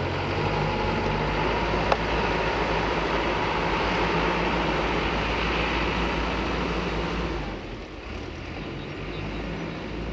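Caterpillar 428F backhoe loader's diesel engine running as the machine drives away along the road, with one sharp clank about two seconds in. The sound drops off about three-quarters of the way through as the machine pulls away.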